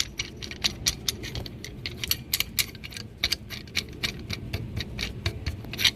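Metal hand tools clicking and rattling against a brake caliper while a caliper piston-compression tool is worked: irregular sharp clinks, several a second.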